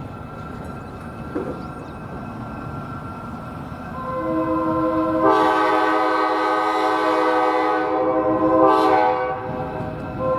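Locomotive running with a low rumble, then a Nathan Airchime K5LA five-chime air horn sounds about four seconds in. It swells to a full chord, holds for about four seconds, eases off briefly near the end and sounds again.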